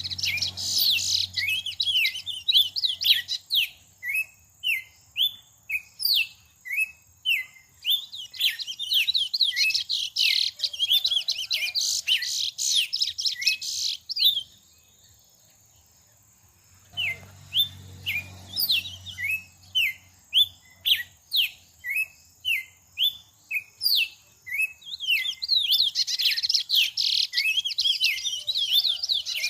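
A songbird singing a long series of short, sharply sweeping whistled notes, spaced out in places and crowded into fast chattering runs in others, with a pause of about two seconds midway.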